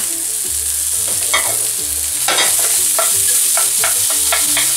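Pumpkin cubes and chard sautéing in hot oil in a frying pan, with a steady sizzle. A wooden spoon stirs through them, scraping and knocking on the pan several times, most often in the second half.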